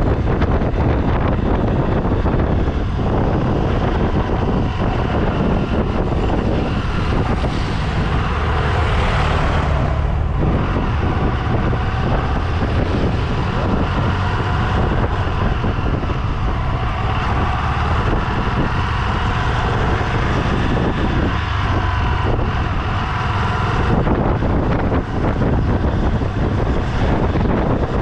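A vehicle running steadily, with heavy wind noise on the microphone.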